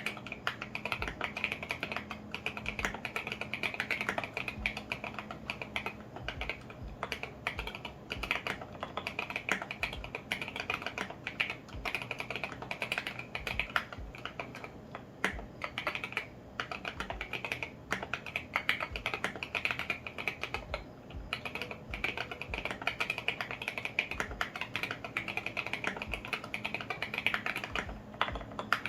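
Continuous fast typing on a custom 65% mechanical keyboard in an acrylic case, fitted with lubed and filmed Alpaca V2 linear switches and SA-profile ABS keycaps: a dense, uneven stream of key clicks with the occasional heavier stroke.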